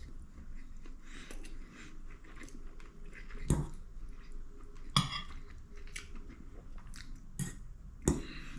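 Someone eating rice from a bowl: quiet chewing with a metal fork scraping and clinking against the bowl, a few sharper clinks standing out.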